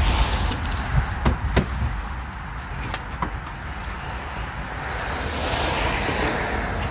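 A car passing on the road: its tyre and engine noise swells and fades, loudest near the end, over a steady low wind rumble on the microphone. A few light clicks and knocks come about a second in.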